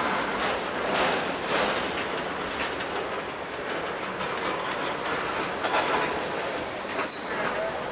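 Freight train cars rolling past, wheels clicking over rail joints with thin, high wheel squeals that come and go. The sharpest squeal comes about seven seconds in.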